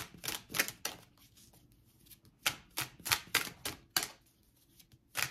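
A deck of tarot cards being shuffled by hand, giving runs of crisp card clicks and slaps. A fading run comes in the first second, then a louder run from about two and a half to four seconds in.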